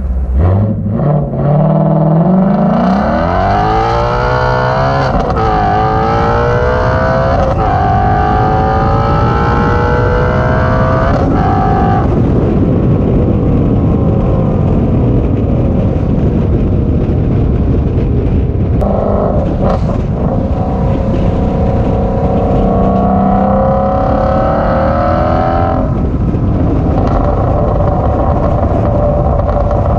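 Resonator-deleted 2020 Shelby GT350's 5.2-litre Voodoo flat-plane-crank V8 accelerating hard: a rising engine note broken by quick upshifts about five and seven seconds in, pulling to a high note before lifting off about twelve seconds in. It settles to a lower steady note, then pulls hard again from about nineteen seconds until it lets off near twenty-six.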